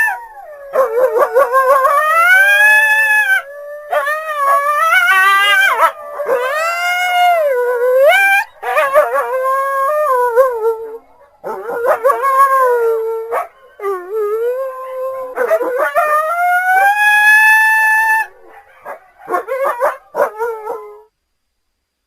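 Coyote howling and yipping: long wavering howls that rise and fall in pitch, broken by short yips. The calls stop about a second before the end.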